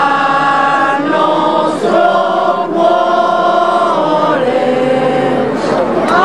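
A group of men and women singing a devotional hymn together, with long held notes that slide from one pitch to the next.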